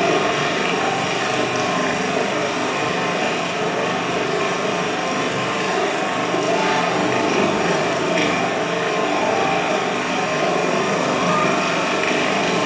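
Fountain water falling and splashing into a basin: a steady, dense rush of water.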